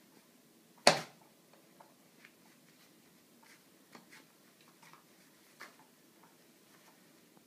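One sharp knock about a second in, then a scatter of faint, light clicks and ticks.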